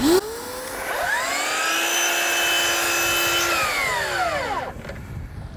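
DeWalt brushless miter saw spinning up with a rising whine, running steadily as it makes a 45-degree miter cut through MDF baseboard, then winding down with a falling whine over the last couple of seconds.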